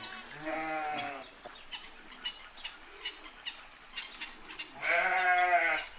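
Two drawn-out farm-animal calls, each about a second long, one at the start and one near the end.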